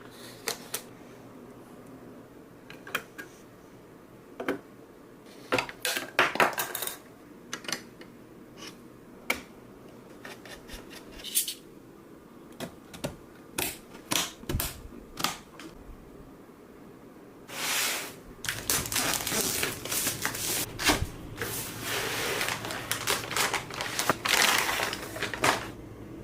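Computer parts being handled and fitted during a PC build: scattered sharp clicks and knocks of hard plastic and metal, then, about two-thirds of the way in, a long run of dense scraping and rustling.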